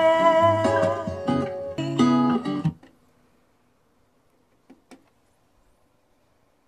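A song's acoustic guitar strumming, played back from a disc on a Sony CDP-591 CD player, showing the player does play; the music cuts off suddenly about three seconds in. About two seconds later come two light clicks, close together, of the player's front-panel buttons being pressed.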